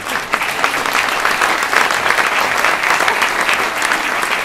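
Audience applauding, a dense patter of many hands clapping that swells just after the start and eases off slightly near the end.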